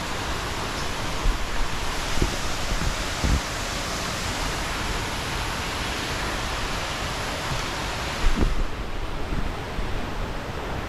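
Steady rushing roar of a waterfall, with a few low thumps. The higher part of the hiss drops away about eight and a half seconds in.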